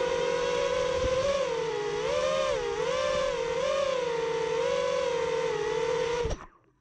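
Five-inch FPV quadcopter's brushless motors (Rotor Riot Hypetrain 2306) and three-blade props whining as it hovers close in, the pitch rising and falling with small throttle corrections. The sound cuts off suddenly near the end.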